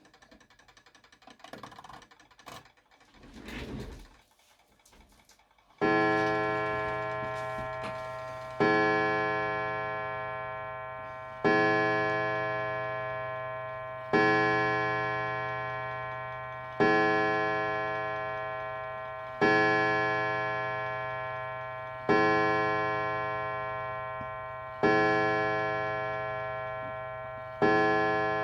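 Napoleon mantle clock striking the hour on its coil gong. Nine hammer blows come about every two and a half to three seconds, starting about six seconds in after a few faint clicks. Each blow rings out and dies away slowly before the next, showing that the freshly adjusted hammer lets the gong ring freely.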